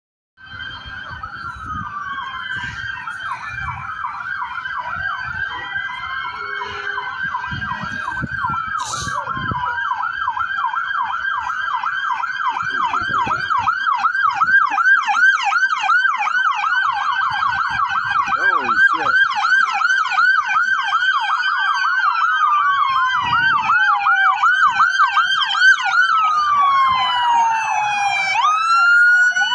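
Several police car sirens sounding at once, mixing fast yelps and slow wails, growing steadily louder as the vehicles approach. A siren sweeps sharply up again near the end.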